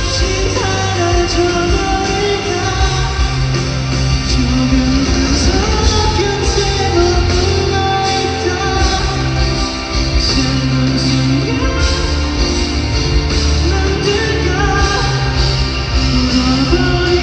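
Live pop-rock band music with singing, guitar over a steady bass line, carrying the echo of a large hall.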